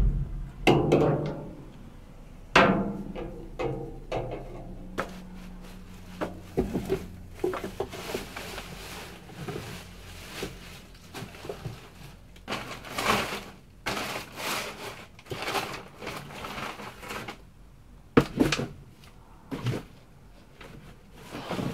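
Rummaging through a dumpster of recycling with a grabber pole: irregular knocks and thumps among cardboard boxes and plastic bottles, with stretches of rustling plastic bags.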